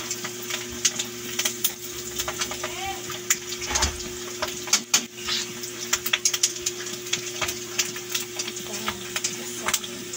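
Breaded pork belly slices deep-frying in hot oil in a wok: a steady sizzle full of quick crackles and pops. Metal tongs click and scrape against the pan and the wire rack as the slices are turned, at the start and again near the end, over a steady low hum.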